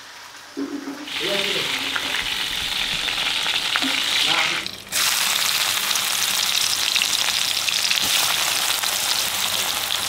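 Hot oil sizzling in a metal wok: first fish pieces frying, then, after a cut about five seconds in, a louder, steady sizzle of sliced onions frying in oil and being stirred with a metal spatula.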